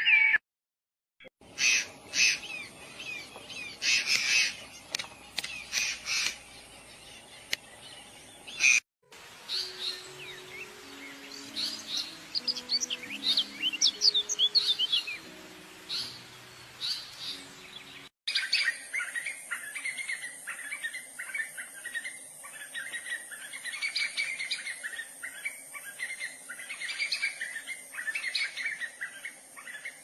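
Small birds chirping and calling in three stretches separated by abrupt cuts. The middle stretch is a thinner, higher twittering over faint low held tones, and the last has a steady high hiss behind the chirps.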